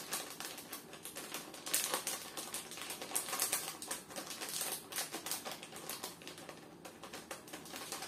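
Paper paprika sachet crinkling and crackling as it is handled and shaken out over a bowl of cut meat, in a dense run of fine irregular clicks.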